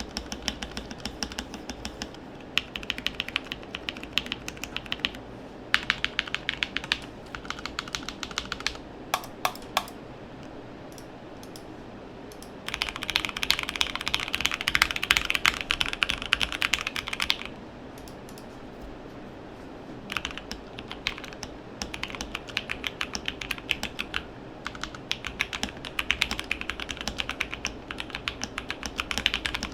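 Typing on a modded Drop ALT mechanical keyboard with lubed Gateron Phantom Brown tactile switches. The keystrokes come in runs, with a fast, dense flurry about halfway through and short pauses with only a few keystrokes between.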